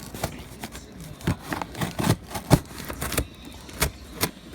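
Cardboard shipping box being opened by hand: irregular sharp clicks, knocks and scrapes.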